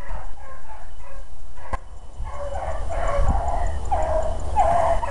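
A pack of beagles baying as they run a rabbit's track, faint at first, then a string of repeated bawling calls that grow louder from about two seconds in.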